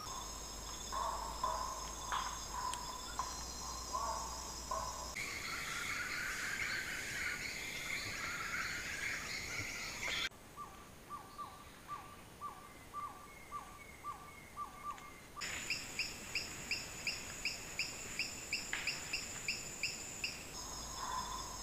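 Amazon rainforest ambience: a steady high insect trill under repeated short animal calls. The calls change abruptly every five seconds or so, including a run of quick falling chirps about twice a second in the middle and then a regular pulsing call.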